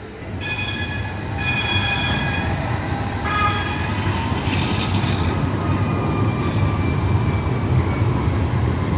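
Low-floor electric tram passing close by, rumbling steadily on the rails. It sounds two warning tones of about a second each near the start, then a shorter third one, with a faint wheel squeal later on.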